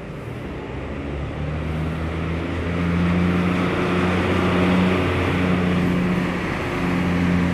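Diesel engine of a large tour coach, an Adiputro Jetbus 3+, running as the bus drives slowly past at close range. The sound grows louder to a peak about five seconds in, then eases a little. A low hum carries a pitch that steps up and down.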